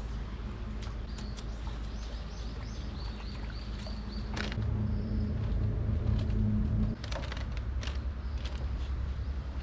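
Birds chirping in a run of short, high repeated notes over a steady low hum that grows louder for a few seconds midway, with a few scattered sharp clicks.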